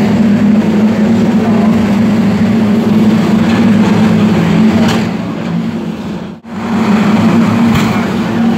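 A pack of saloon stock cars racing round the oval, their engines running together in a steady loud drone. The sound drops out briefly about six seconds in, then the same engine drone resumes.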